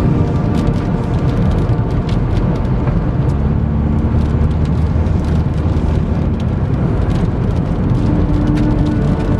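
Strong storm wind buffeting a moving car, heard from inside the cabin as a loud, steady low rush, with scattered sharp ticks against the car.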